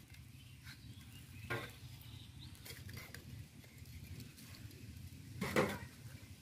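Stainless steel bowls knocking against the metal pot and tray as they are lifted out of hot water: two brief clinks, about a second and a half in and near the end, over a faint background.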